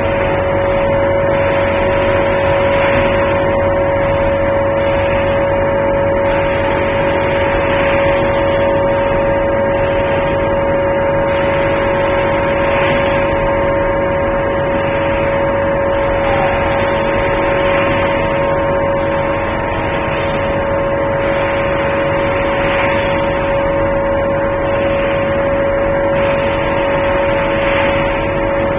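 Rotary pulp-moulding egg tray machine running: a steady machine hum with a strong constant tone, and a hiss that swells about every two to three seconds.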